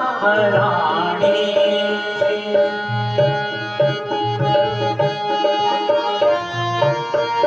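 Indian devotional music with no vocals: a tabla-like hand drum keeps a steady low rhythm under a melodic instrument holding long notes. In the first second the melody wavers in a short bending phrase.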